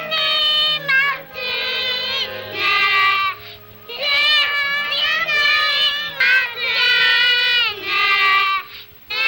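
Young girls singing a song together in high, long-held notes, in phrases broken by a short pause about four seconds in and another just before the end.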